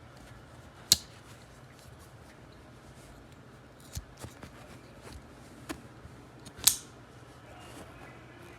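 Spring-assisted folding pocket knife clicking as it is worked: two loud, sharp snaps, one about a second in and one near the end, with a few lighter clicks between, the sound of the blade flicking open and shut.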